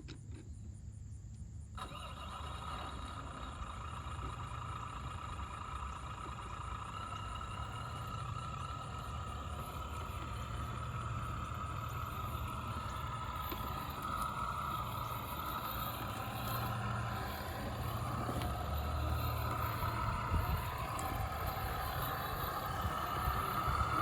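Electric motor and gear drivetrain of an Axial SCX10 radio-controlled crawler whining as it drives, the pitch wavering up and down with the throttle and slowly getting louder.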